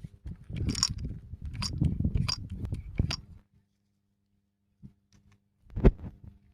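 Hand-pumped hydraulic crimping tool being worked to press a cable lug in its die: handle strokes with clicks and creaks, about one every 0.7 s, then a pause and a single sharp knock near the end.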